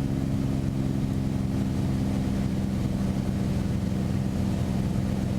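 Beechcraft Bonanza's single piston engine and propeller droning steadily in flight, heard from the cockpit.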